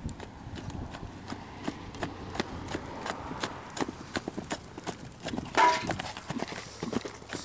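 Horse's hooves clip-clopping in a long, uneven run of hoofbeats. A brief, loud, pitched cry cuts in a little over halfway through.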